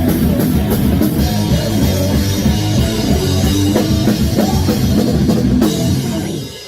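A heavy metal band playing live in rehearsal: pounding drum kit and distorted electric guitars. The loud playing drops away near the end, leaving a fading ring.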